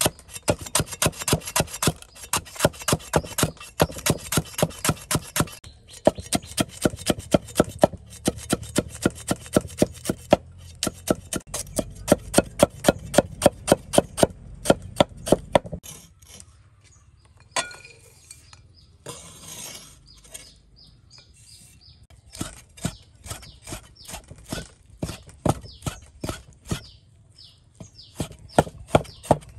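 Cleaver chopping rapidly on a wooden chopping block, about five sharp knocks a second, slicing vegetables and then raw pork. Partway through the chopping thins out for a few seconds, with a couple of scrapes of the blade across the board, then the steady knocks resume.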